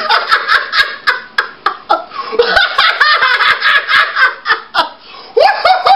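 A man laughing loudly and theatrically, a long cackle in rapid pulses that breaks off briefly near the end and then picks up again.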